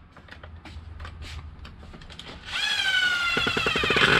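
Cordless electric screwdriver whining as it spins a screw in an RC truck's chassis, starting about two and a half seconds in, its pitch sagging slightly, with a fast run of clicks in the last second. Before it, light clicks and knocks of parts being handled.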